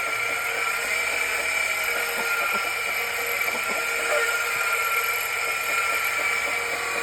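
Electric grinder running with a steady high whine as it grinds down a rooster's spur.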